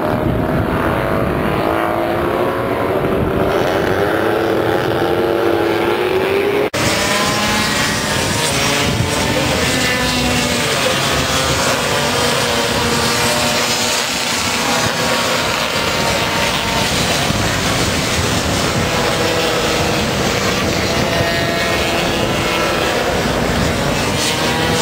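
A pack of two-stroke racing scooters, Lambrettas and Vespas, running round the circuit, many engines whining together with pitches rising and falling as they come through the corner. For the first several seconds a single engine climbs steadily in pitch before the sound switches abruptly to the whole pack.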